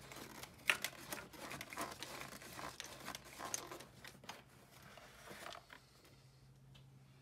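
Rubber air intake boot on a BMW E46 being twisted and pulled free by hand: a busy run of rubbing, scuffing and sharp plastic clicks that dies away after about five and a half seconds.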